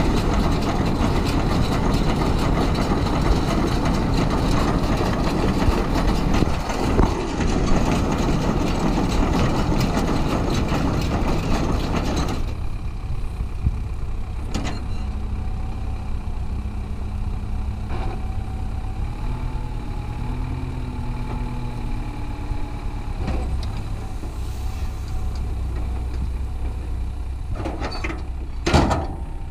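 Belarus MTZ tractor running as it pulls a round baler, with the loud, dense noise of the baler taking in and rolling hay. About twelve seconds in the feeding noise drops away, leaving the engine and a steady whine. Near the end a sharp thump comes as the finished round bale is dropped out the rear of the baler.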